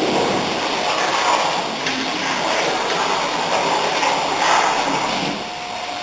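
CNC plasma cutting torch firing its arc and cutting sheet metal: a loud hissing rush that starts abruptly and stops about five seconds in, leaving a steady whine.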